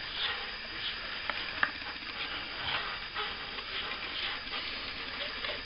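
Plastering trowel scraping and swishing over wet plaster on a ceiling repair in irregular strokes, with a couple of sharp clicks about a second and a half in.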